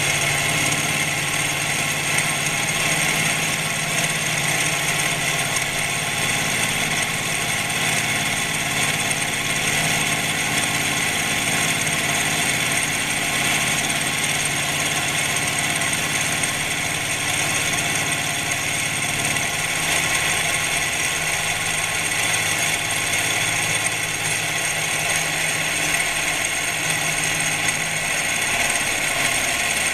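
Milling machine face milling with a 50 mm face mill: a steady machine hum with several steady whining tones from the spindle and cutter. The low part of the hum drops away about two-thirds of the way through.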